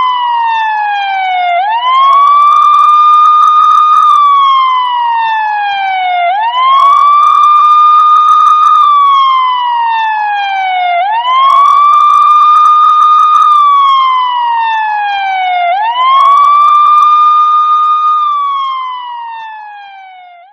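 Police siren wail played as a ringtone: a tone sweeps quickly up, holds high for about two seconds, then slides slowly down, repeating about every five seconds. It fades out near the end.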